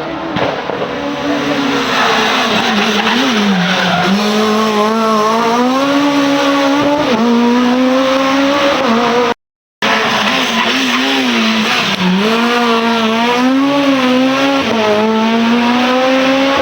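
Rally car engine running hard at high revs, its pitch repeatedly dipping and climbing with gear changes and throttle, over loud tyre noise. The sound cuts out for about half a second around nine seconds in, then the same kind of run carries on.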